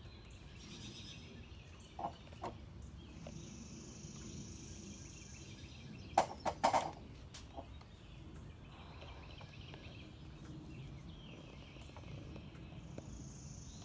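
Faint outdoor background with insects buzzing high and steady, coming and going. A few sharp clicks or knocks cut through, two of them about two seconds in and a quick cluster of three, the loudest sounds here, about six seconds in.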